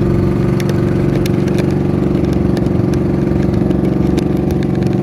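Engine of a motorized outrigger fishing boat (banca) running steadily at constant speed with the boat under way: an even drone with scattered faint ticks.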